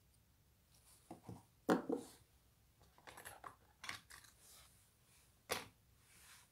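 Handling noises of a spinning-top toy and its packaging: a string of light clicks and knocks as the metal and plastic parts are handled and set down. The sharpest comes about a second and a half in, and another sharp one near the end.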